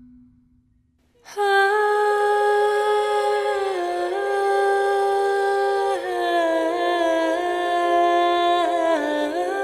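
Wordless humming of a slow siren's song, a high voice that begins about a second in and holds long notes, stepping to a new pitch every two to three seconds.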